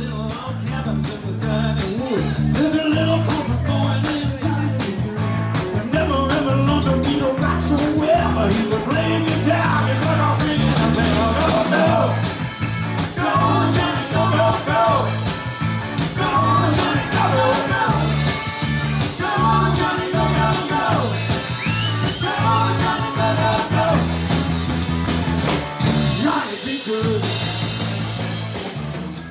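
Live rock band playing a song: drum kit keeping a steady beat under bass, electric guitar and acoustic guitar, with a woman and men singing together into microphones.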